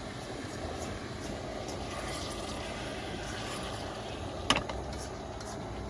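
Heavy rain falling steadily in a storm, a continuous hiss with small patters, and one sharp tap about four and a half seconds in.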